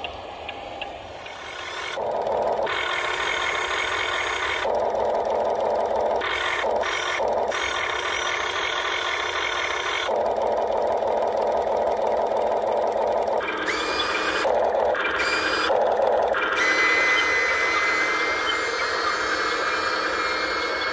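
Amewi G704E radio-controlled model excavator running, its motor whine starting and stopping abruptly in spells of half a second to a few seconds as the machine is worked, with a short rising whine about two thirds of the way through. The first two seconds are quieter before the motors come in.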